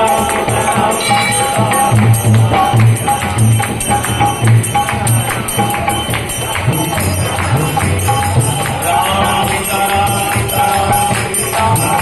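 Instrumental passage of devotional kirtan music: harmonium with steady rhythmic jingling hand percussion.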